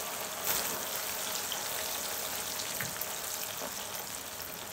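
Split moong dal sizzling steadily as it deep-fries in hot oil, the oil bubbling around it in a wire-mesh strainer.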